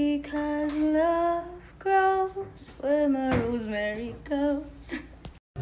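A woman singing solo, holding and bending notes with a wavering vibrato. The phrase cuts off abruptly near the end.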